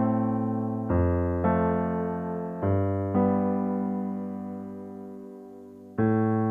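Background music: an electric piano playing slow sustained chords, each struck and left to fade, one held long in the middle before a new chord near the end.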